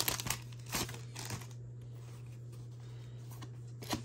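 A few soft rustles and clicks of trading-card packs and their wrappers being handled, over a steady low hum.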